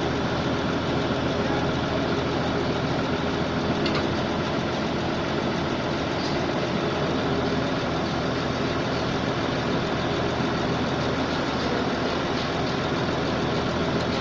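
Diesel engine of a 655 CFM portable air compressor running at a steady speed.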